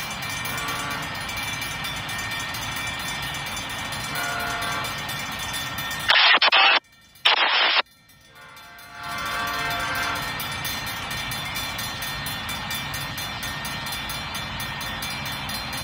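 An approaching locomotive's horn sounds a multi-note chord in separate blasts, about a second in, about four seconds in, and a longer one around nine seconds in, over the steady ringing of the grade-crossing signal bells. About six seconds in, two loud harsh bursts cut in, with sudden dropouts between and after them.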